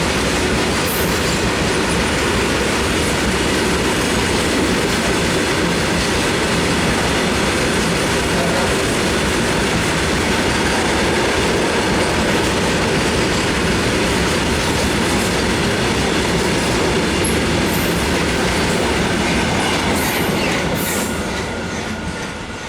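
Wagons of a 59-wagon freight train rolling through at speed: a steady rumble with wheel clatter on the track, dropping away near the end.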